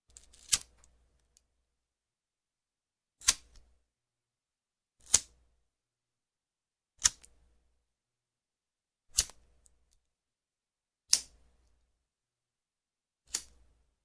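BIC disposable lighter being flicked: its flint spark wheel is struck seven times, about one sharp click every two seconds.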